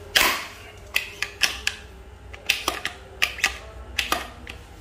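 Hard metal and plastic gun parts being handled: an irregular series of about ten sharp clicks and clacks, the first the loudest.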